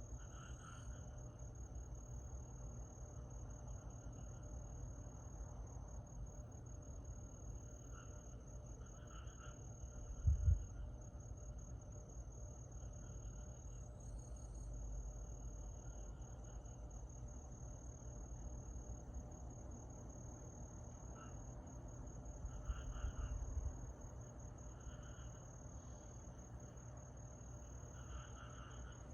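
Summer night insects singing: a continuous high-pitched trill, with short chirping calls repeating every second or two over it. A dull low thump about ten seconds in, and a shorter low rumble around twenty-three seconds.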